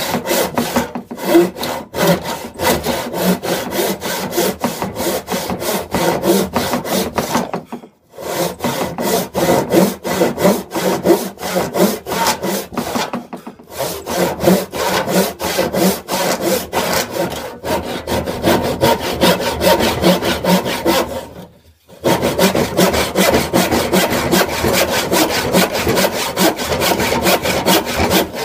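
Hand panel saw cutting through a thick plank of reclaimed wood in steady, rhythmic back-and-forth strokes. The sawing stops briefly three times.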